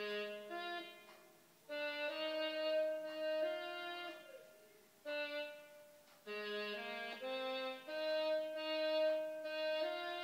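Physically modelled woodwind voices from an iPad app, clarinet- and saxophone-like, playing held notes in several parts at once. They come in short phrases separated by brief pauses.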